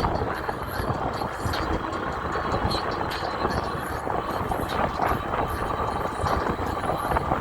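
Wind buffeting the microphone and road noise while riding an e-bike, a steady rumbling rush with no breaks.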